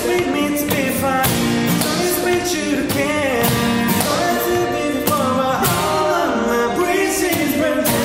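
Two acoustic guitars strummed in a steady rhythm while male voices sing a pop song in harmony, a live unplugged performance.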